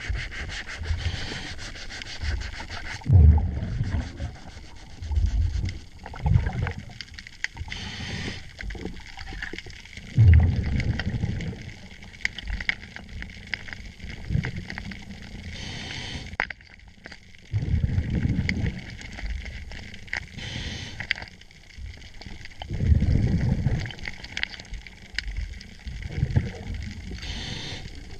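A scuba diver's regulator breathing underwater: a hissing inhale followed by a low bubbling exhale every several seconds. Between breaths come small metallic clicks and scrapes of hand work on the boat's shaft zinc.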